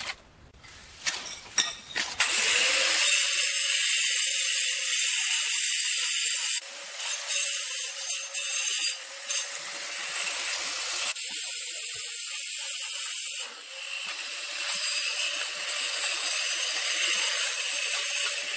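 A power tool running steadily from about two seconds in: a loud hiss with one steady whining tone, dipping briefly a few times. Before it come a few faint scrapes and clicks.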